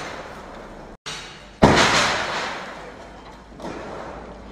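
Earthquake shock table delivering an impact shock to a half-scale stone masonry model house: a loud bang about one and a half seconds in that dies away over about two seconds, following the fading tail of an earlier bang.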